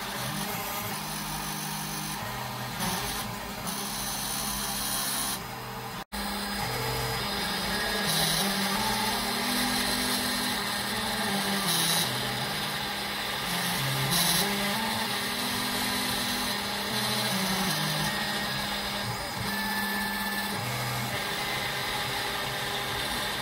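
Snapmaker CNC spindle running as its engraving bit cuts lines into Foamex (PVC foam board), with the motors that drive the head humming in low tones that step up and down in pitch as it changes direction. The sound cuts out for an instant about six seconds in.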